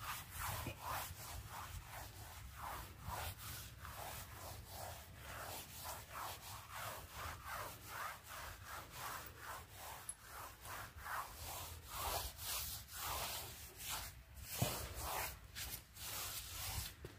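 Paintbrush scrubbing pool tiles wet with diluted muriatic acid, in quick rhythmic back-and-forth strokes: the acid wash that clears the white grout haze off the tiles.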